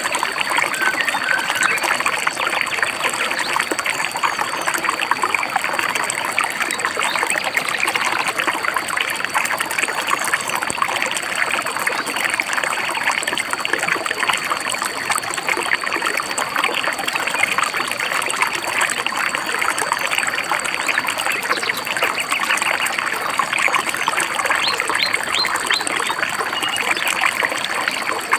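A stream babbling and trickling steadily, with a few short, high bird chirps near the end.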